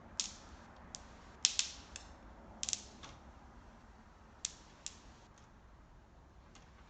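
Protective plastic film being peeled off a new laptop LCD panel, giving a scattering of sharp crackles and clicks, most of them in the first few seconds.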